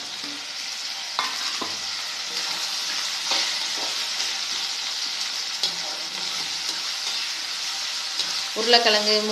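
Potato pieces with onion and tomato sizzling in hot oil in a pan, with a steady hiss and a few sharp knocks of a spoon against the pan as it is stirred.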